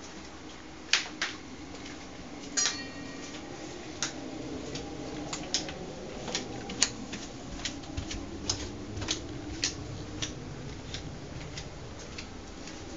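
Footsteps on hard floors and stairs: a run of sharp, uneven clicks, about two a second through the middle, over a low room hum. About two and a half seconds in there is a single ringing metallic clink.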